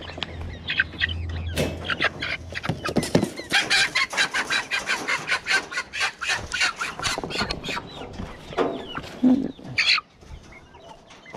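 Chickens clucking and squawking while being handled, with a fast run of sharp clucks in the middle.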